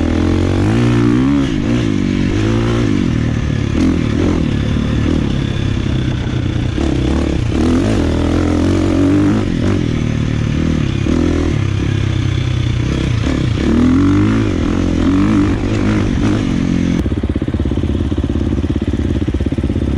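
KTM 350 XCF dirt bike's single-cylinder four-stroke engine revving up and falling back over and over while riding through the gears. About 17 s in it settles to a steadier, duller note.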